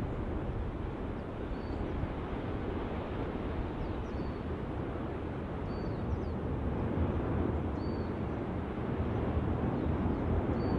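Steady low rumble of an erupting lava vent on Kīlauea's flank, even in level and swelling slightly near the end.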